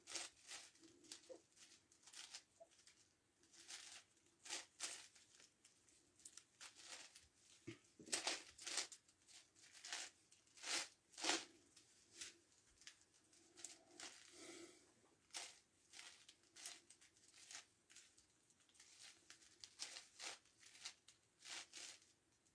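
A 9x9x9 Rubik's Cube being turned by hand: faint, irregular plastic clicks and rasping slides as its layers are twisted, about one or two turns a second, with a few louder ones in the middle.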